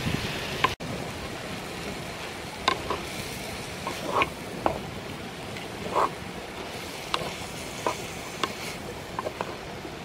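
A spoon stirring a pot of small shrimp, knocking and scraping against the sides of the earthenware pot at irregular moments. Under it is the steady rush of a stream.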